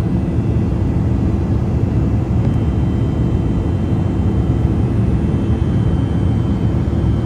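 Steady cabin noise of a jet airliner in cruise flight, heard inside the cabin by a window near the wing-mounted turbofan engine: a constant low drone that does not change.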